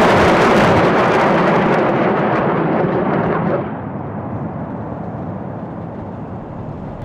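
Roar of 220 mm Uragan salvo rockets launching and climbing away, a loud rushing rumble. About three and a half seconds in it drops and dulls into a lower, fading rumble.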